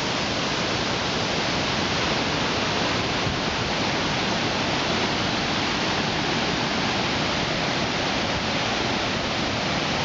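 Steady rushing roar of a waterfall in full spate, swollen by heavy rain, the floodwater pouring down a series of rock cascades.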